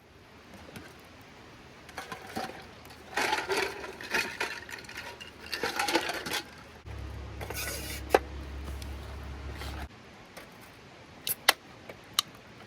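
Objects being handled, with rustling and several sharp, light clinks, the sharpest near the end. A steady low hum sounds for about three seconds in the middle and cuts off suddenly.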